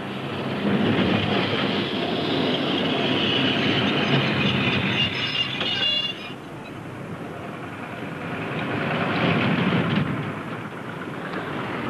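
Glasgow Corporation electric tramcar running on street rails, wheels rumbling over the track, with a thin squeal of wheels on rail around four to six seconds in. It eases off, then grows louder again near the end.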